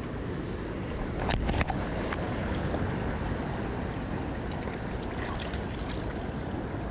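Shallow river water running over stones, with a short, louder cluster of clicks about a second and a half in.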